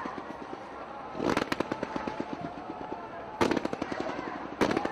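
Fireworks going off in three loud volleys, about a second in, past three seconds and near the end, each a rapid run of crackling bangs.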